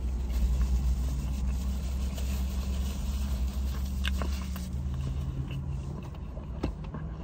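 Steady low hum of a parked car's engine idling, heard from inside the cabin. About four seconds in there is a faint click as a bite is taken from a burrito.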